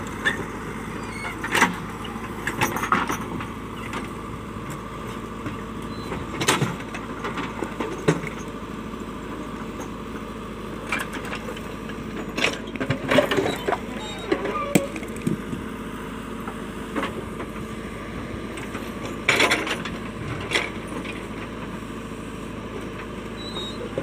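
JCB backhoe loader's diesel engine running steadily as its excavator bucket digs through rocky soil, with scattered knocks and clatters of the steel bucket scraping and stones tumbling, busiest around the middle and again near the end.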